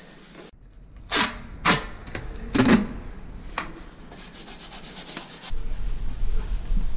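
Laminate flooring pieces scraping and rubbing against the stair as they are pushed and fitted into place: four short scraping strokes, then a quick run of fine clicks, then louder handling rustle near the end.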